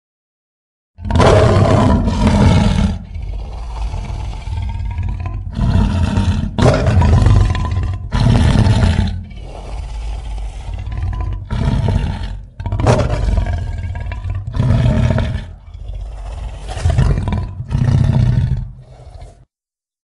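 Custom-made Scorpius rex creature sound effect: a long string of loud, growling roars that swell and fade about every one to two seconds over a continuous low rumble. It starts about a second in and stops shortly before the end.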